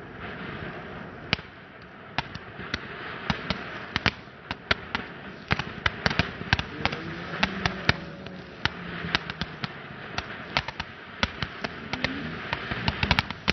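Fireworks going off: a steady fizzing hiss with many sharp, irregular pops and cracks, coming in a dense cluster near the end.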